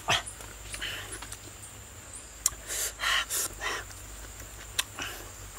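A man eating with his fingers: short breathy puffs and hisses through the mouth, about half a dozen, bunched together near the middle, with a couple of sharp lip-smack clicks.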